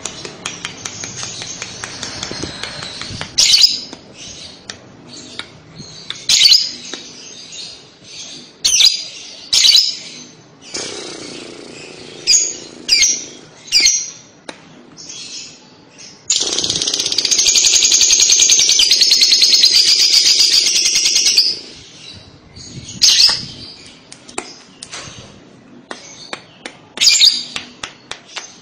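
Lovebird calling: short, sharp, high chirps every second or two, and in the middle a long, loud, rapid trilling chatter (the 'ngekek') lasting about five seconds.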